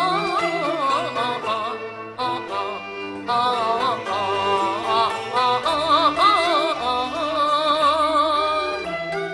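Cantonese opera song music: a melody with heavy vibrato wavers above a steady lower accompaniment.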